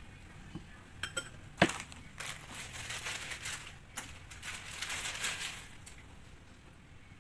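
Kitchen handling sounds: a few sharp clinks and knocks, the loudest about one and a half seconds in, then a few seconds of crinkling and rustling that fade out.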